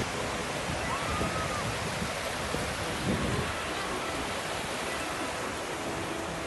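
Steady rushing noise of ocean surf breaking on a beach, with faint distant voices underneath.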